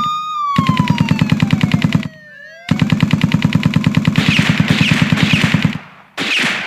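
Casio CT-X700 keyboard's machine-gun sound-effect tone, played as rapid bursts of shots about ten a second, three bursts in all. A short sliding siren-like tone sounds between the first two bursts.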